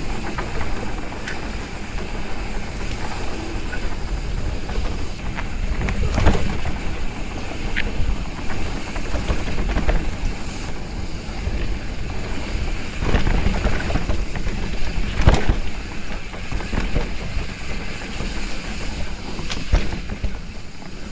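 Mountain bike rolling fast down a dirt singletrack, with tyre noise on loose dirt and leaves and wind rushing over the helmet camera's microphone. The bike clatters sharply over bumps now and then.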